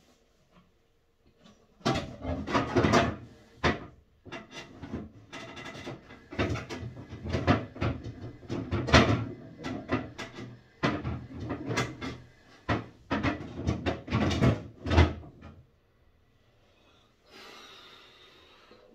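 Irregular knocks, bumps and clatter of things being handled and moved about, stopping a few seconds before the end; a faint hiss starts near the end.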